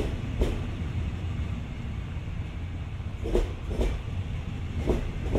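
Railway carriage wheels clacking over a rail joint as a train rolls past: knocks in pairs about half a second apart, one pair for each bogie, over a steady low rumble.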